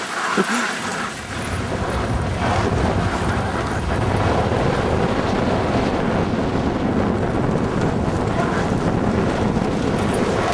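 Wind buffeting the microphone on a moving dog sled: a steady, loud, low rumble that builds up about a second in and holds.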